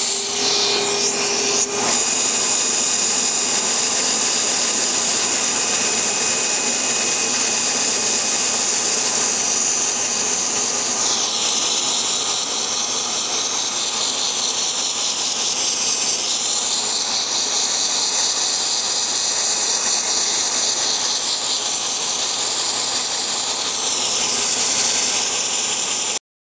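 Large Lego four-cylinder single-acting engine running fast and steadily, a loud continuous hiss and whir with a faint whine in the first couple of seconds.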